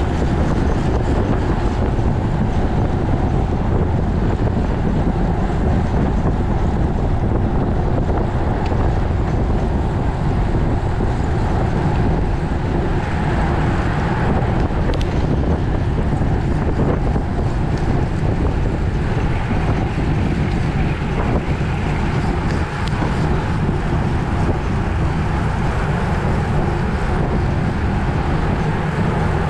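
Wind rushing over a bike-mounted camera's microphone as a road bike rides at racing speed, around 20 to 30 mph. A loud, steady rush that never lets up.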